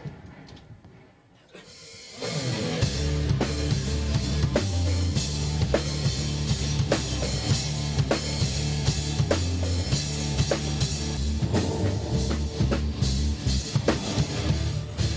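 Band music: after the sound fades low over the first two seconds, a drum kit with kick, snare and cymbals and a bass line come in and keep a steady beat.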